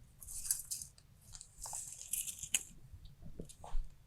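Tape measure being handled between measurements: faint scraping and rustling of the blade, with a few sharp clicks.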